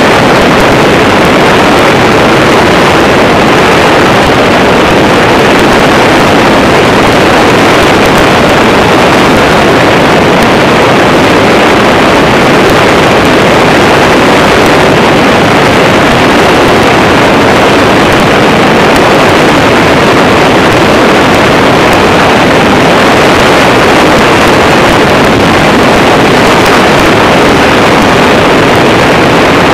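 Weight-shift microlight trike in flight: its engine and pusher propeller run at a steady pitch under loud, constant wind rush on the microphone.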